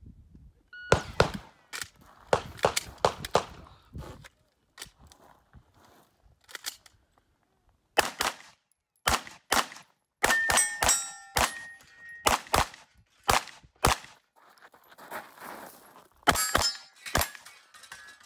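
A shot timer beeps about a second in, then a SIG MPX 9mm pistol-caliber carbine fires in several rapid strings of shots. From the middle on, some hits are followed by a short metallic ring from steel targets.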